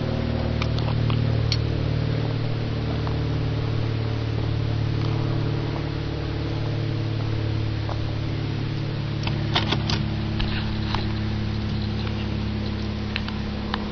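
A machine running steadily with a low hum, with scattered light clicks and taps, most of them clustered a little after the middle.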